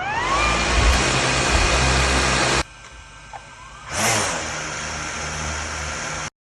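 Small drone's electric motors and propellers spinning up with a rising whine, then running steadily. The sound cuts off abruptly about two and a half seconds in, starts again about four seconds in, and stops dead near the end.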